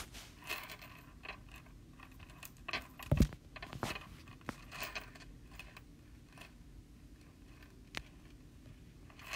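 Handling noise from a smartphone close to its microphone: fingers tapping and rubbing on the touchscreen and case, scattered clicks and short scrapes, with one heavier knock about three seconds in.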